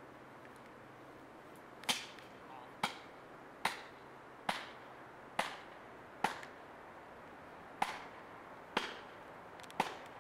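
Felling wedges being driven into the cut of a large pine with hammer blows: nine sharp strikes, roughly one a second, each with a short ring, starting about two seconds in.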